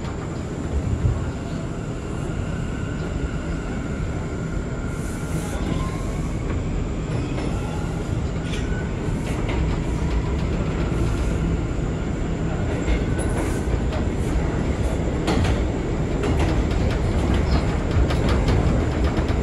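R179 subway car running at speed in the tunnel: a steady low rumble of wheels on rail that grows a little louder. Faint gliding whining tones sit above the rumble, and from about five seconds in, quick clicks and clatter come from the wheels.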